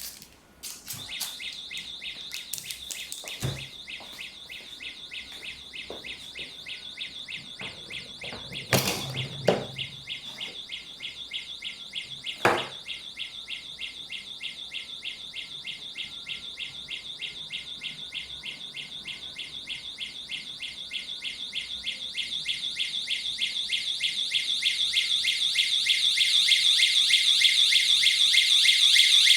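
Siren of a wireless infrared-beam intruder alarm sounding a rapid, high-pitched pulsing beep that grows steadily louder over the last third. A few knocks are heard in the first half, the loudest about nine seconds in.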